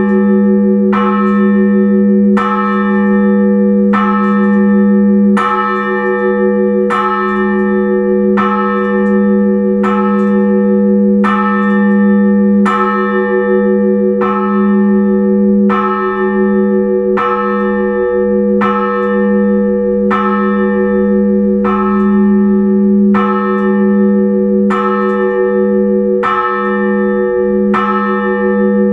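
Russian Orthodox church bells rung to call the faithful to the liturgy: smaller bells struck in a steady, evenly repeating pattern, about one and a half strokes a second, over the continuous hum of a larger bell.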